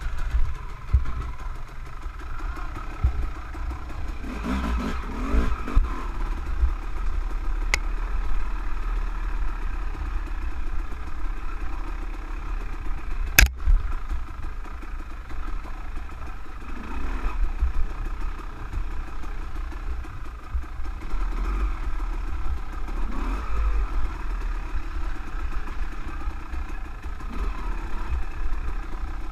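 Dirt bike engine running at low speed down a slippery trail, rising and falling in pitch a few times as it is throttled, over a heavy low rumble on the microphone. A single sharp knock about halfway through.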